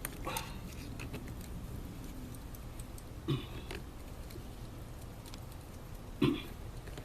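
Three short knocks or clinks over a low steady hum, the last one the loudest.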